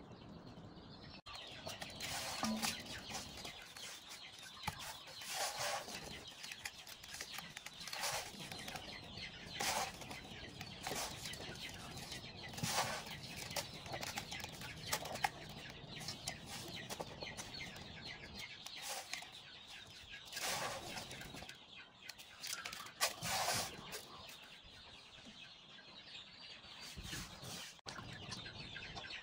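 Chickens clucking over the scraping, rubbing and splashing of spiny eels being cleaned by hand in aluminium basins: a knife scraping the slimy skin, the fish scrubbed in a coarse grainy scrub, then rinsed in water.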